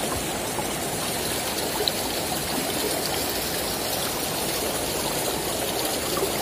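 Shallow stream flowing steadily, water rushing over the rocks and riffles of the riverbed.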